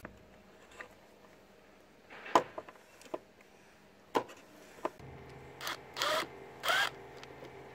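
A few sharp clicks of a screwdriver working a rusted hose-clamp screw. About five seconds in, a cordless power driver with a socket starts running steadily, with a few louder bursts as it works the rusted screw loose.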